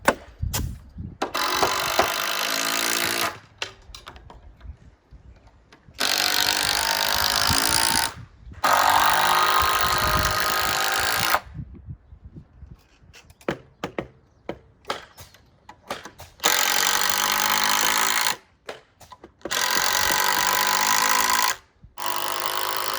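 A power tool running in six bursts of about two seconds each, with short clicks and knocks in the gaps between them.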